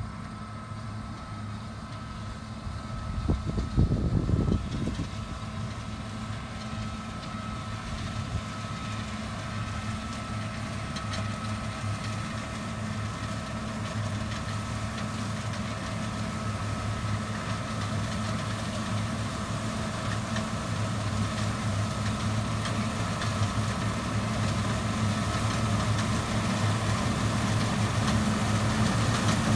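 Engine of farm harvest machinery running steadily, with a constant hum that slowly grows louder. A brief heavier rumble comes a few seconds in.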